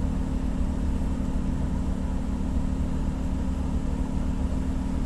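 Ship's engine machinery running with a steady low drone.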